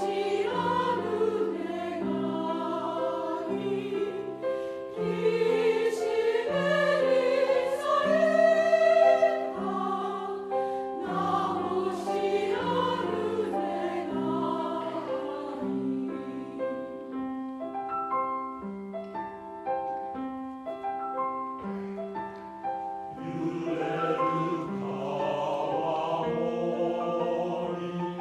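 Mixed choir singing a slow piece in Japanese with piano accompaniment. Around the middle the sound thins to quieter, plainer held notes, then the full choir swells back near the end.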